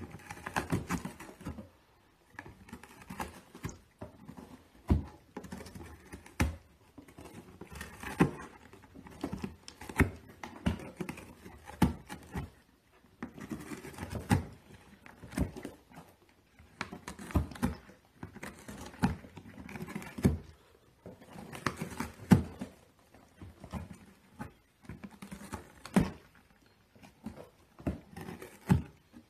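Kittens clawing, chewing and knocking about a cardboard box: irregular scratching, tapping and thumps on the cardboard, some louder than others.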